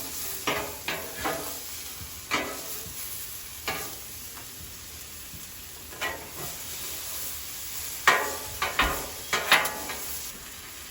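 Chicken, onions and bell peppers sizzling on a Blackstone flat-top griddle, with a metal spatula scraping and clacking on the steel top as the mix is pushed into sandwich portions. The strokes come singly every second or so, then in a quicker run near the end.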